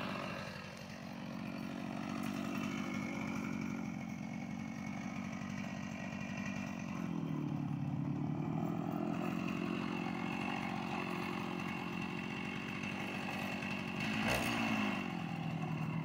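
Stihl MS 290 two-stroke chainsaw running steadily as it cuts into a standing tree trunk. Its engine pitch dips under load about seven seconds in, then recovers.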